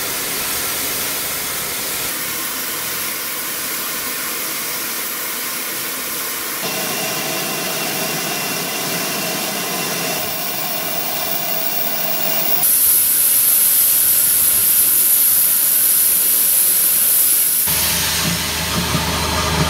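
Steady steam hiss from GWR steam locomotives standing in steam; the hiss changes from shot to shot and is loudest and highest in the middle stretch. Near the end a GWR tender locomotive moves off with steam blowing from its cylinder drain cocks, and a low rumble comes in under the hiss.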